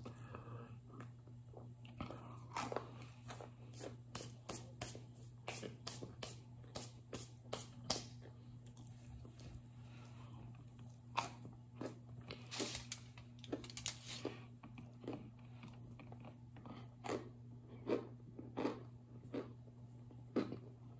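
Cornstarch brick being bitten and chewed close to the microphone: many sharp, irregular crunches, a few louder ones in the second half, over a steady low hum.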